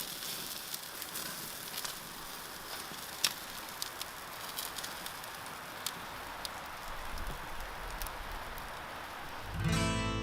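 Barbecue grill sizzling, with a steady hiss and scattered sharp crackling pops. Acoustic guitar music comes in near the end.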